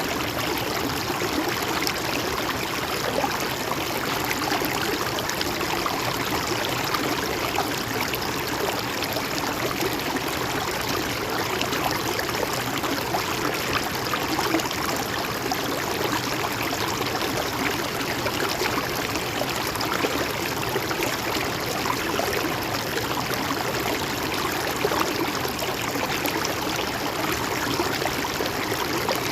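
A gently flowing river running steadily over its bed, a continuous rushing with fine gurgling and splashing.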